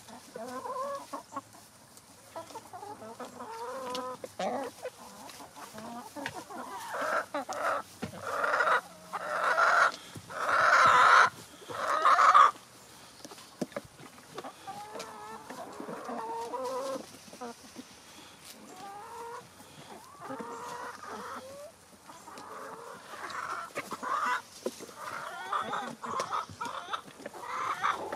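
Chickens clucking throughout, with a run of louder, longer calls from about seven to twelve seconds in.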